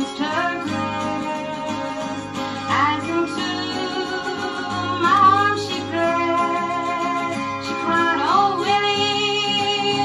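Dulcimer music from a record: a plucked melody over steady drone strings, with notes that slide upward every two or three seconds.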